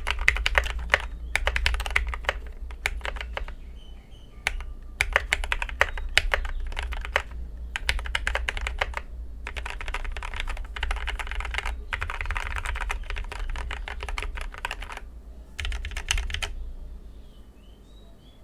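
Typing on a mechanical keyboard with Gateron Yellow KS3 linear switches, lubed with a Krytox 205g0/105 mix and filmed, in an Idobao ID80 V1 case. Fast runs of keystrokes come in bursts with short pauses between them, and the typing stops shortly before the end.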